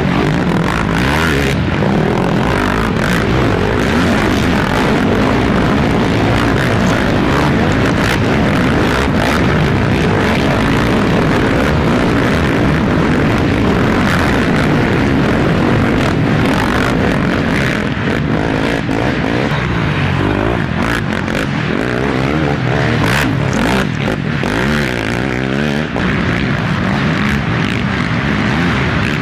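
Racing ATV engines running hard, revving up and dropping back as quads go by on the course.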